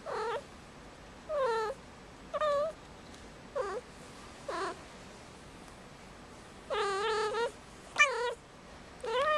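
Five-month-old female kitten in heat calling: about eight short meows, each a fraction of a second, spaced roughly a second apart, with one longer, drawn-out call near the end. This repeated calling is the vocalising of a cat in oestrus.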